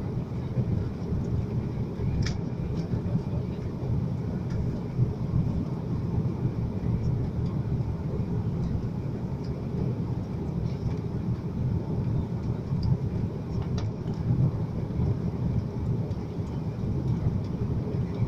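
Cabin noise of an Airbus A330-300 on final approach, heard from a window seat over the wing: a steady low rumble of its Rolls-Royce Trent 700 engines and the airflow around the aircraft. A faint click about two seconds in, and another near the end.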